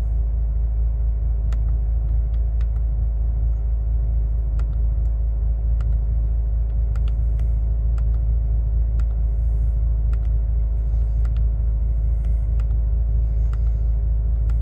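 Bentley GT's engine idling in Park, heard inside the cabin as a steady low rumble with a faint hum. Light clicks come every second or so as the instrument-cluster menu buttons are pressed.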